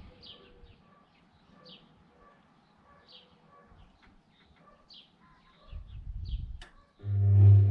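Washing machine falling quiet after its water fill, with faint short chirps about every second and a half, then a low rumble and, about seven seconds in, a loud steady low hum as the machine starts up again.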